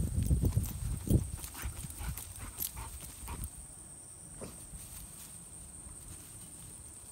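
A dog digging in the dirt with its front paws, a fast run of scraping thumps for the first second or so, then scattered scratches and clicks of dirt that fade to quieter scuffling after about four seconds.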